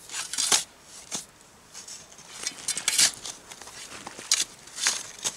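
Spade scraping into a heap of loose earth and tossing soil down into holes in an earthen dike. It comes as a series of short scrapes and rustles of falling soil at irregular intervals, several times over.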